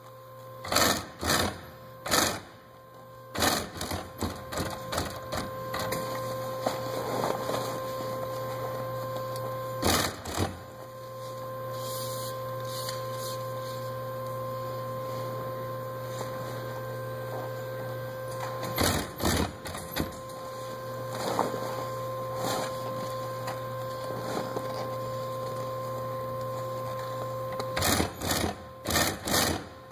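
Industrial sewing machine stitching heavy vinyl. A steady motor hum runs under short, loud bursts of clattering stitching: several in the first few seconds, one about ten seconds in, one around nineteen seconds, and a cluster near the end.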